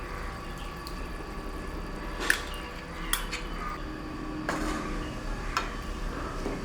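A cooking utensil clinking and scraping against the pot as whisked yogurt is stirred into chicken curry, with a few sharp clinks, the loudest about two seconds in.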